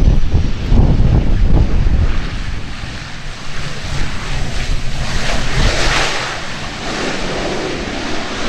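Gusty wind buffeting the microphone with a heavy low rumble, over the engines and propellers of an ATR 42 turboprop taxiing on the runway. A hissing engine sound swells about halfway through and fades again.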